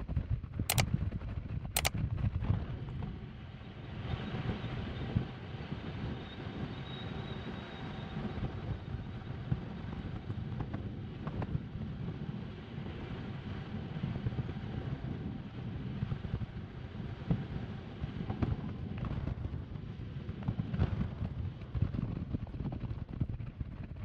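Car on the move: a steady low rumble of road and engine noise, with two sharp clicks in the first two seconds.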